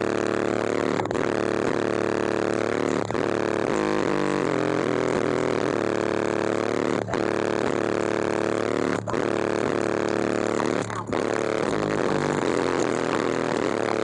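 Very loud bass from a car-audio system's 18-inch SMD subwoofers filling a sealed truck cab: a dense, steady drone with brief dips about every two seconds.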